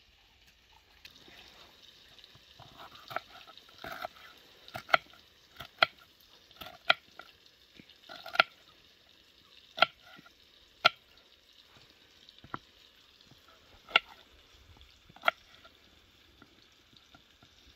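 Kitchen knife slicing bell pepper on a wooden cutting board: about a dozen sharp knocks of the blade on the board, roughly one a second, with small pauses between cuts.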